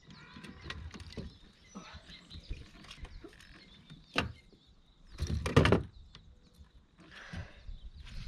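Scattered knocks, clicks and rustling from handling a freshly landed largemouth bass and fishing gear aboard a kayak, with a sharp click about four seconds in and a louder noisy burst about a second later.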